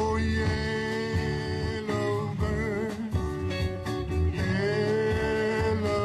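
Live band music between sung lines: guitar and a steady bass line, with a lead melody holding long wavering notes twice.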